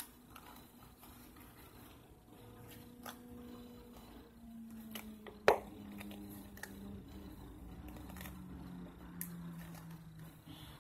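Quiet handling of a plastic Elmer's glue bottle squeezed upside down over a bowl, with scattered soft clicks and one sharp click about five and a half seconds in. A faint low steady tone runs underneath from about two seconds in.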